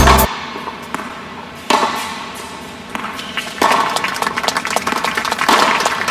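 Music with a beat cuts off just after the start. A small crowd then claps, the applause growing louder in two steps.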